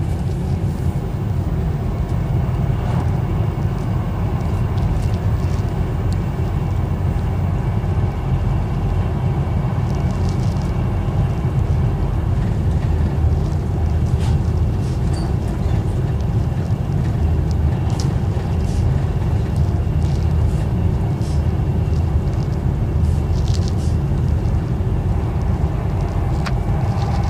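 Train running at speed, heard from inside the carriage: a steady low rumble of wheels on the rails, with a few faint short clicks scattered through it.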